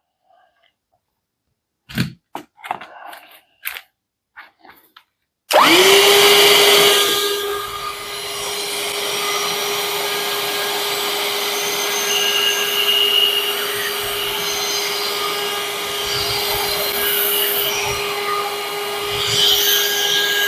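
A few clicks and knocks as a nozzle is fitted. Then, about five seconds in, the Parkside 20V cordless handheld vacuum cleaner switches on and runs with a steady whine, picking up cookie crumbs. It switches off at the end.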